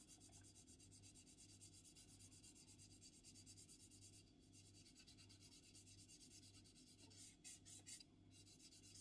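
Very faint rubbing of a fine sanding sponge worked back and forth over a clear plastic model canopy, smoothing down its centre seam line.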